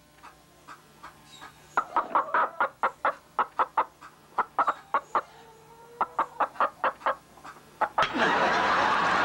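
Chicken clucking in a quick run of short calls, several a second, with brief pauses between runs. About eight seconds in, a loud steady rushing noise starts suddenly and takes over.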